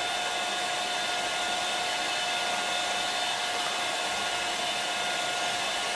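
Electric hand mixer running steadily with a constant whine, its beaters whipping instant cappuccino, sugar and hot water into dalgona foam in a small glass.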